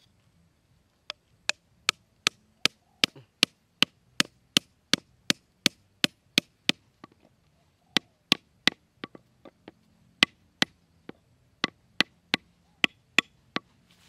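A hammer striking the top of a small wooden stake, driving it into the dirt: about thirty sharp knocks at two to three a second, in runs with a couple of short pauses.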